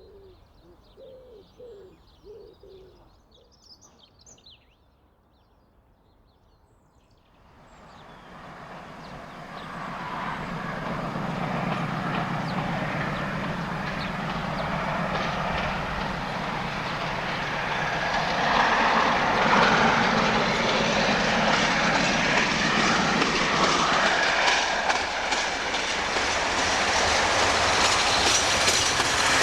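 Birds chirp faintly at first. About seven seconds in, a diesel-locomotive-hauled train approaches and grows steadily louder: a low engine note, then the rumble and clatter of wheels on the rails as it passes.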